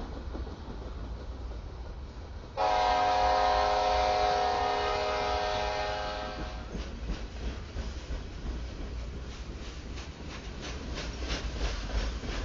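A locomotive air horn sounds a loud multi-note chord about two and a half seconds in, holds it for about four seconds and stops abruptly. Underneath, loaded freight flatcars rumble steadily past, and near the end the wheels click rapidly over the rail joints.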